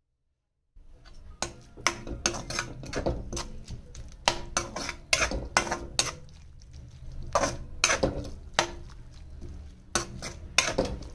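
Metal spatula scraping and clinking against a metal kadhai as a wet onion-tomato masala is stirred. The irregular scrapes and knocks start about a second in, after a short silence.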